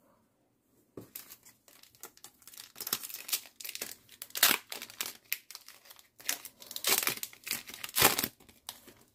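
Foil wrapper of a Pokémon trading card booster pack crinkling and crackling in the hands as it is torn open, starting about a second in, with a few louder crinkles.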